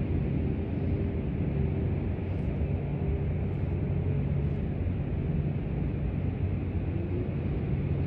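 Steady low rumble with a faint constant hum, unbroken throughout.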